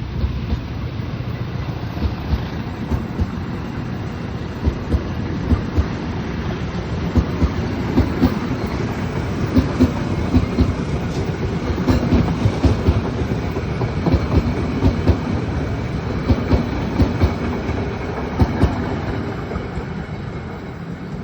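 A train hauled by a CC 201 diesel-electric locomotive rolls past, with a steady low rumble and wheels clacking over rail joints in repeated paired knocks. The clacking builds after a few seconds and fades near the end.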